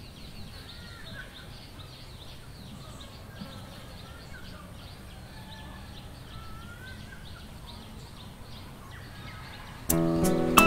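Outdoor ambience with birds calling and chirping repeatedly over a faint background hum. Near the end, music starts suddenly and much louder, with sharply plucked notes.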